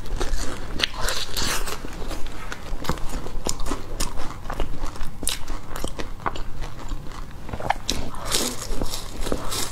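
Close-miked eating of a flaky egg tart: crisp bites into the pastry shell and crackly chewing, many small crunches throughout, with a fresh bite near the end.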